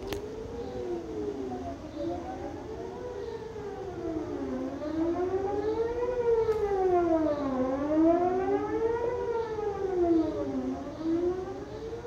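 Distant outdoor tornado warning sirens wailing in a monthly test. The pitch rises and falls about every three seconds, with two overlapping wails slightly out of step, loudest in the middle of the stretch.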